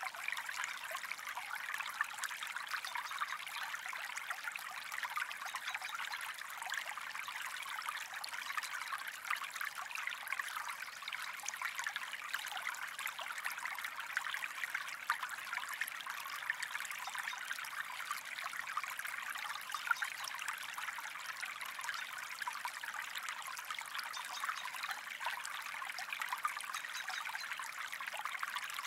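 Gentle stream trickling and babbling steadily, a light, even splashing with little deep rumble.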